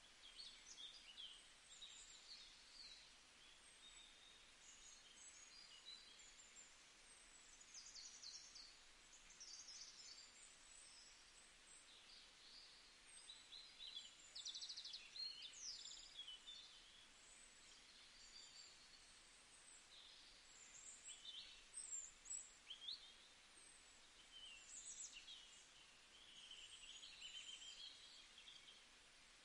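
Faint birds chirping in the background: many short, high chirps and brief trills, coming and going, over a low steady hiss.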